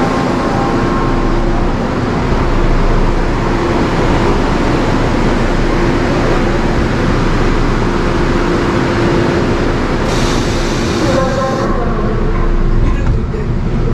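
Byeollae Line (Seoul Subway Line 8) train running, a steady rumble with a low hum, with a short hiss about ten seconds in.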